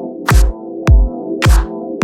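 Background electronic music with a steady beat: a deep kick drum about every half second, sharp hits in between, over sustained synth chords.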